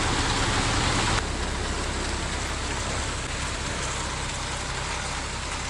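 Concrete mixer truck's diesel engine running steadily, with an even hiss over it; the sound drops a little about a second in.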